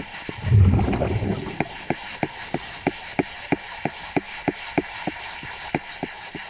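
Scuba diver's exhaled bubbles rumbling underwater about half a second in, over a steady series of sharp clicks about three a second.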